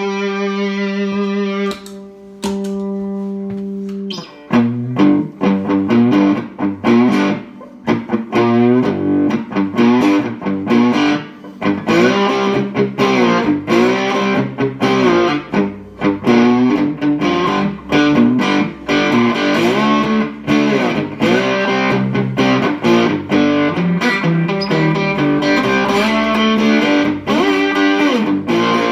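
Lightning Boy cigar box guitar played with a slide. A held chord rings for about two seconds, then after a short pause a fast riff of picked notes with many sliding pitch glides.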